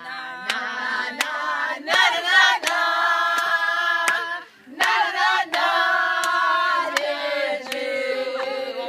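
A group of women singing together in long held notes, in two phrases with a short break between them, with hand claps keeping time.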